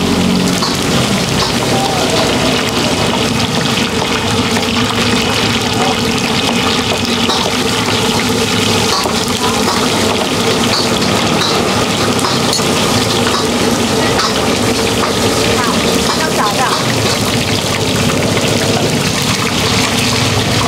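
Stinky tofu deep-frying in a pot of hot oil, sizzling steadily.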